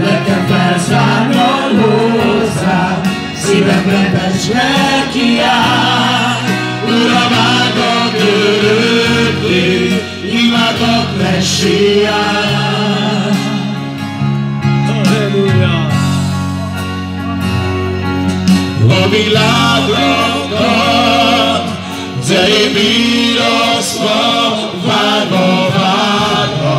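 Live gospel worship song: singing over a band accompaniment, with a bass line that holds each note for a few seconds before moving.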